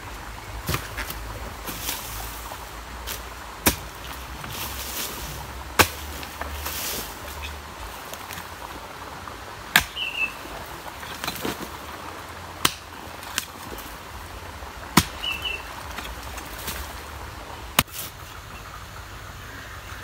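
Hoe chopping into clay soil: sharp strikes every two to three seconds, with short scrapes of loosened earth between them. A bird chirps briefly twice.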